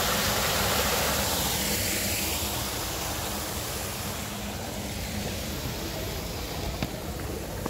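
Sewage-ditch water rushing through a grate clogged with wipes and rags into a culvert, easing off after a couple of seconds, over a steady low rumble. A sharp click near the end.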